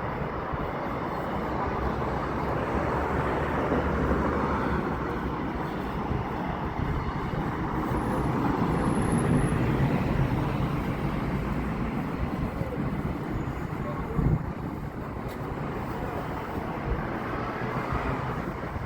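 City street traffic noise: a steady wash of passing vehicles with gentle swells as they go by.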